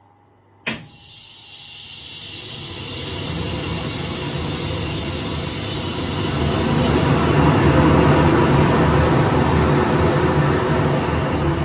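Suction fan of a powder-coating extraction unit, driven through a frequency inverter, starting with a sudden thump and then a rushing air noise with a low rumble that grows louder over several seconds as its speed is stepped up to 110%.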